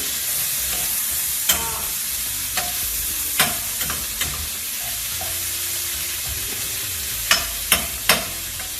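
Chopped onion frying in butter and garlic in a pan, with a steady sizzle. A utensil clicks against the pan about seven times as it is stirred.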